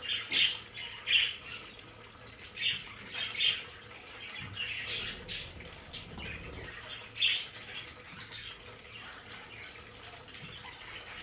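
A group of budgerigars chattering: many short, sharp chirps and squawks overlapping irregularly, with the loudest calls in the first second or so and again a few seconds later.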